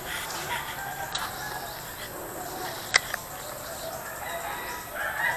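Rooster crowing, with a louder, longer crow near the end and a couple of sharp clicks in between.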